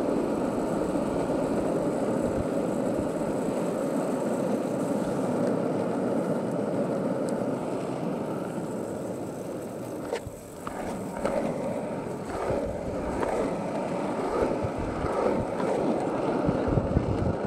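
Skateboard wheels rolling on asphalt, a steady rumble that eases off about ten seconds in and is followed by several clacks and knocks.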